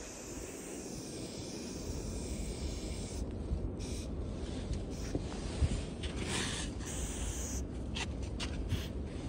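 Aerosol spray paint hissing out of a can in stretches, with one longer spray about two thirds of the way through and a few short quick bursts near the end, over a low steady rumble.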